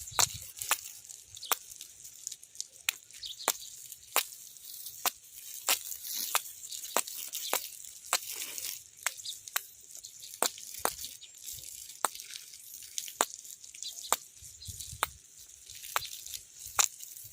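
Water dripping: a steady run of sharp single drops, roughly one every half second or so, over a faint hiss.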